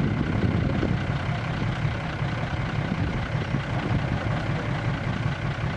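An old six-wheel dump truck's engine idling steadily with its tipper bed raised.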